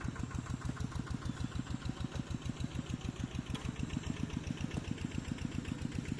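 Tractor engine running steadily with an even, rapid chugging of about ten beats a second.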